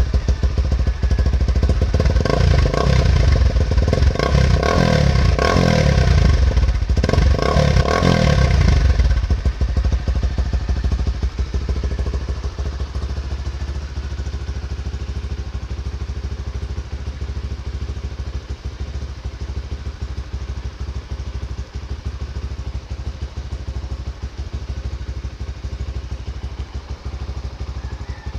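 Honda RS150 fuel-injected single-cylinder motorcycle engine revved several times in quick blips, then settling back to a steady idle.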